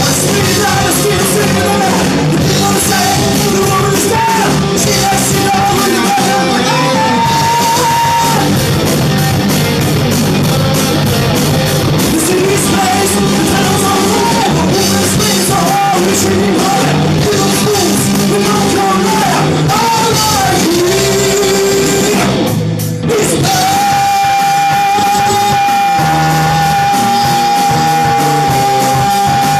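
Hard rock song with a singer over band accompaniment, loud throughout. Shortly after a brief drop about 23 seconds in, the voice holds one long high note.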